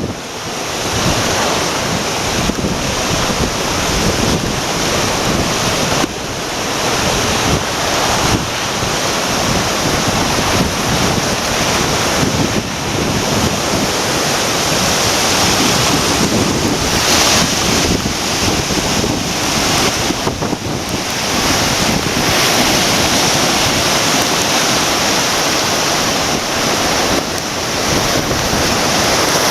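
Typhoon wind gusting on the microphone over the steady rush of the flood-swollen Kumano River.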